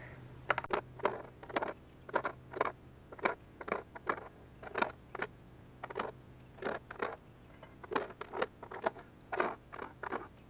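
Pieces of gravel dropped one at a time into a plastic jug, each landing as a short, sharp click or clack, roughly two to three a second at an uneven pace.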